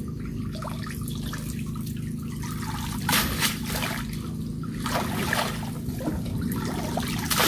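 A wet cast net being hauled up and swished through shallow canal water: water trickling and dripping off the mesh, with splashes about three seconds in, around five seconds and near the end, over a steady low rumble.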